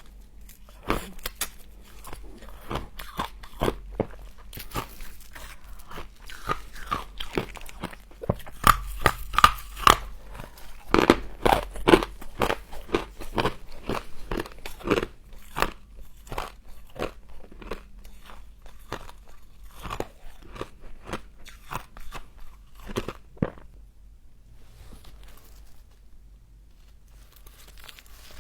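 Humidifier frost being bitten and chewed: many quick, crackly crunches, coming thickest in the middle and dying away near the end.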